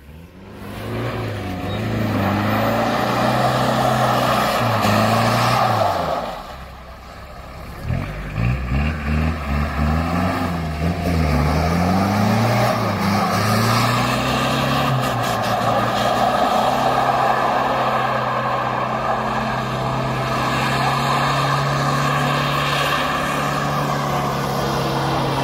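Toyota Land Cruiser 70-series engine revving up and down as the vehicle is slid around on ice. It eases off briefly about six seconds in, takes a quick series of throttle blips, then holds fairly steady revs.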